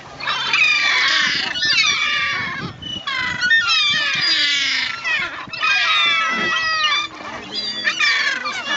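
Gulls calling in about six bursts of high, falling cries, several voices overlapping. Among the callers is a second-year Caspian gull, which calls with its bill open.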